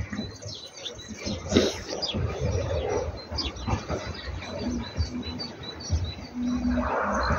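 Small birds chirping and calling, many short high notes repeated, over a low rumble.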